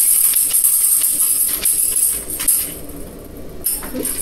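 Music with a shaken tambourine, its metal jingles rattling in quick strokes; the jingling drops away for under a second about three seconds in and then comes back.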